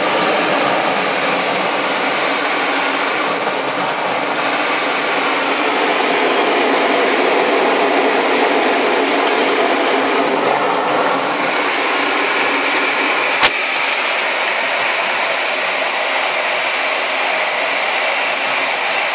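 Steady rush of air over the canopy of a Schleicher ASK 21 two-seat glider climbing on a winch launch, heard inside the cockpit. The rush changes tone about eleven seconds in, and a single sharp click comes a second or two later.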